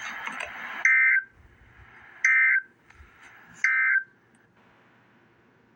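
Emergency Alert System end-of-message data bursts: three short, shrill bursts of digital tones about a second and a half apart, signalling the end of the alert. Before the first burst, a loud hiss of noise cuts off just under a second in.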